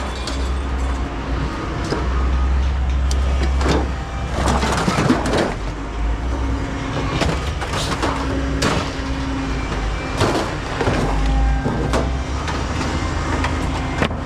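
Scrap metal being unloaded: repeated clanks, bangs and scraping of metal pieces being pulled and tossed onto a pile, over the steady low rumble of a running engine.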